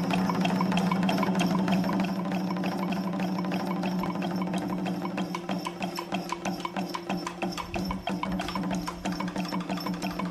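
Background music with a fast, even clicking percussion beat over a steady low tone.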